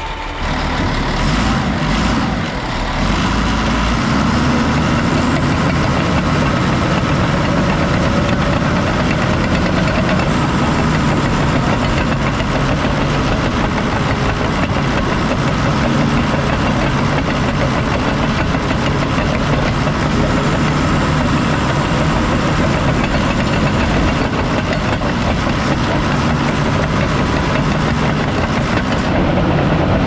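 Case military crawler bulldozer's diesel engine running steadily under load, with its steel tracks clattering as the dozer drives over gravel. There are a few sharp clanks a second or two in.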